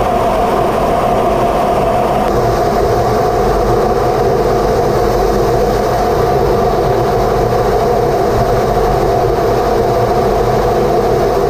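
Steady cockpit noise of an F-15C Eagle's twin turbofans and airflow in flight: a constant loud rush with a strong droning hum. The hiss in the highs drops a little about two seconds in.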